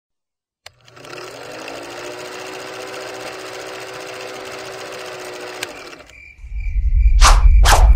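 Film projector sound effect: a click, then the projector whirring and clattering as it comes up to speed and runs steadily, cutting off about six seconds in. A steady high beep and a swelling low rumble with three quick whooshes follow near the end.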